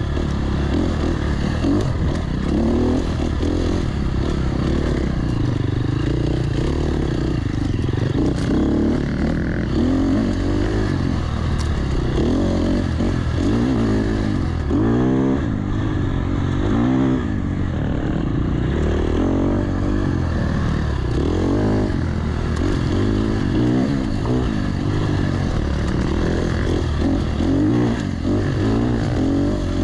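Enduro dirt bike engine ridden hard on a trail, revving up and down over and over as the throttle is opened and closed.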